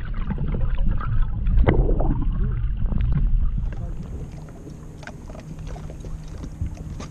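Lake water sloshing and gurgling close to the microphone, with knocks and splashes. About four seconds in it cuts to a quieter scene with light wind and a faint steady low hum.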